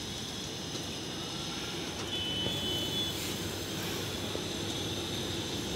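Steady outdoor city background noise, mostly a low hum of distant traffic, with a few faint brief high tones, one pair about two seconds in.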